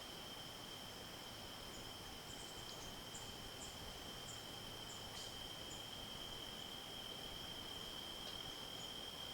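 Crickets or other insects trilling steadily, a continuous high-pitched drone, with a series of short, faint, higher chirps about every half second for the first few seconds.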